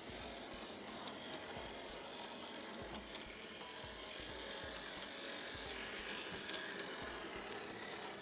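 Hornby Polly 0-4-0 model locomotive running steadily on the track, its small electric motor and gears whirring with a thin high whine, as the engine is run in.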